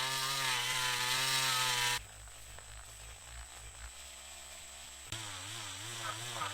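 Polishing-wheel motor running as a waxed brass lighter body is buffed, its whine wavering in pitch. About two seconds in it cuts abruptly to a quieter low hum, and the wavering whine comes back about three seconds later.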